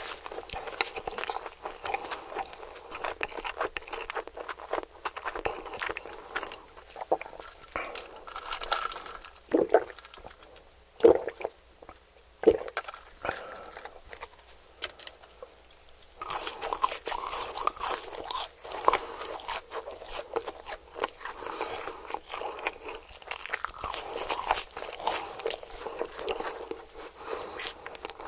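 Close-miked crunching and chewing of crispy fried hash browns and chicken nuggets, a dense run of crackly bites. There is a quieter stretch about a third of the way in, broken by three short, louder mouth sounds, before the crunching picks up again.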